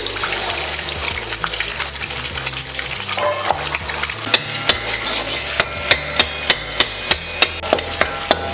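Beaten egg frying in hot oil, with a steady sizzle at first. From about four seconds in, a spatula strikes the pan in an even rhythm of about three sharp taps a second as the egg is scrambled.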